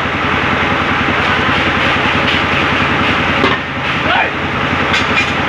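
Heavy rain pouring steadily onto wet pavement, with an engine running in a low steady rhythm underneath. A few sharp hammer strikes ring out as a truck tyre's bead is beaten loose with a sledgehammer.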